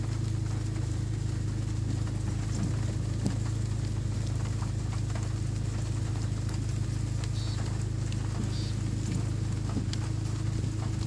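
Steady low mechanical hum that does not change, with faint scattered clicks and two short high chirps about two-thirds of the way through.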